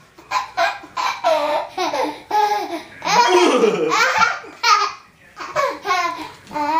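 Toddler laughing hard: a string of short, high-pitched bursts, then a longer unbroken peal in the middle, then more short bursts.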